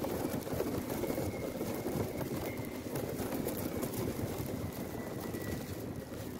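Wind buffeting the microphone of a mobile phone carried aloft on a kite: a steady, fluttering rumble, with a faint thin whistle held through the middle of it.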